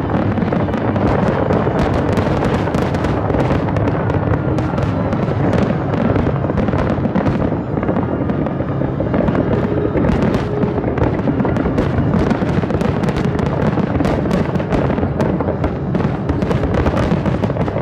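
Aerial firework shells exploding in quick, nearly continuous succession, with music playing underneath.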